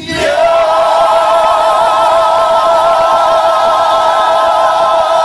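A woman's voice holding one long, high sung note with vibrato.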